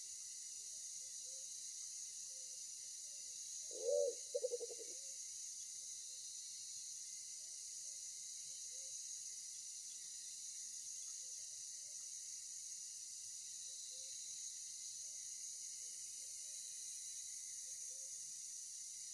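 Steady high drone of forest insects, with one short, low-pitched double bird call about four seconds in and faint brief calls now and then.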